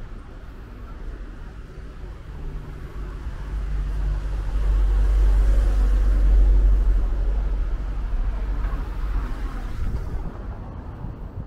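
A box truck driving slowly past close by on a brick-paved street: a low rumble that swells to its loudest about five to seven seconds in, then fades away.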